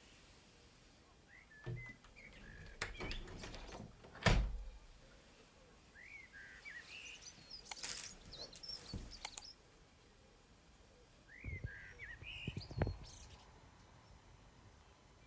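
Small birds chirping in short rising and falling calls, with several knocks and thumps of things being handled; the loudest thump comes about four seconds in.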